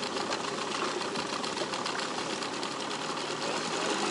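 Nissan Marine 9.8 hp outboard motor running at low speed, a steady rattling hum that grows louder near the end as the boat gets under way.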